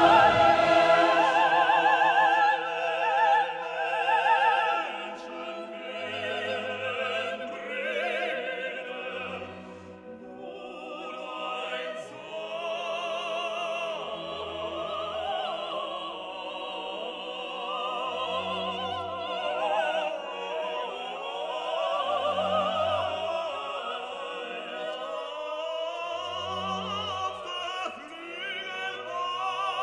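Music: operatic singing with strong vibrato over orchestral accompaniment, loudest in the first few seconds.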